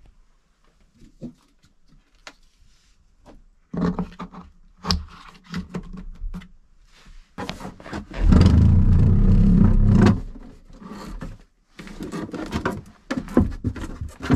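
An Ecoflow Power Kit battery box being pushed and slid into place on a wooden floor under a bench, with knocks and bumps. The loudest part is a scrape of about two seconds near the middle as the battery is shoved along the floor.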